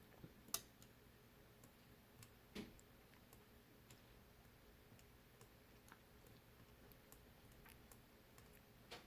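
Near silence with a few faint, sharp clicks: one about half a second in, another about two and a half seconds in, and some fainter ticks.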